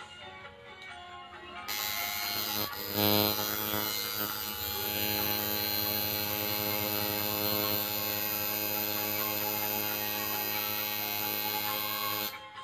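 Tattoo machine buzzing steadily as it works the needle into the skin behind the ear. It starts about two seconds in, breaks off briefly, then runs evenly until it stops near the end.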